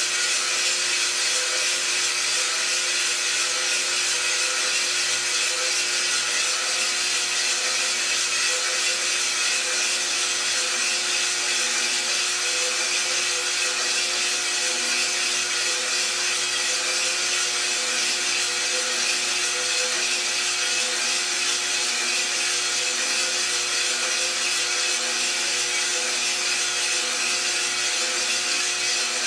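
Iroaster600 coffee roaster running steadily, its motor turning the drum with a continuous hum and whir and green coffee beans tumbling and rustling inside. The beans are still green, early in the roast before any cracking.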